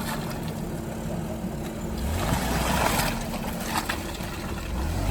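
Off-road 4x4 engine running as the vehicle crawls through rough ground, with a louder rush of noise about two seconds in that lasts about a second.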